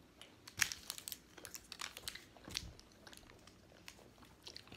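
Candy wrapper crinkling as it is handled, in faint, irregular crackles.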